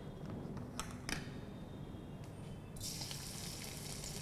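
Garlic dropped into hot oil in a wok, setting off a sudden, steady sizzle nearly three seconds in. Before that there is a low background hum with two light clicks.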